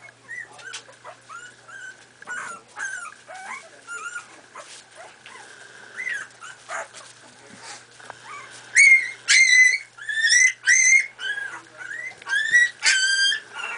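4.5-week-old miniature pinscher puppies whimpering and squeaking as they wrestle, with short high cries throughout. About nine seconds in, the cries turn into a run of loud, high-pitched yelps.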